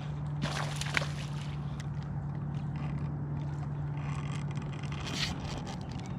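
A boat's motor running with a steady low hum, with scraping and rustling handling noises about half a second in and again around four to five seconds in.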